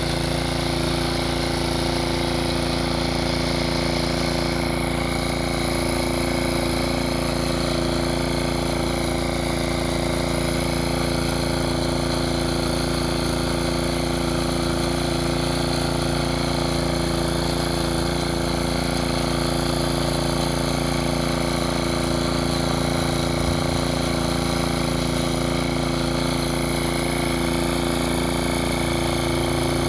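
Mountfield MS 07 walk-behind tractor's small petrol engine running steadily under load as it pulls a plough through the soil. Its pitch holds even throughout.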